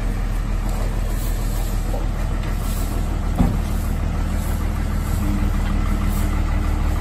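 Garbage compactor truck's engine idling steadily, with a single knock about three and a half seconds in. A higher steady hum joins a little past the middle.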